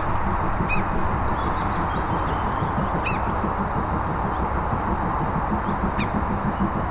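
Distant steam train pulling away: a steady low rumble of locomotive exhaust from the SJ B-class steam engine 1324 and its pusher locomotive. Short bird chirps come about a second in, around three seconds and around six seconds.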